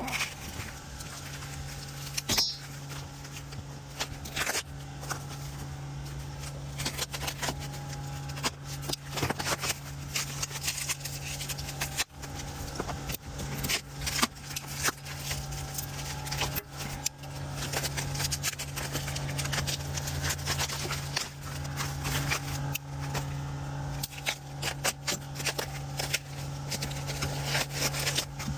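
Scattered clicks, knocks and scrapes of tools and metal parts being handled, over a steady low hum.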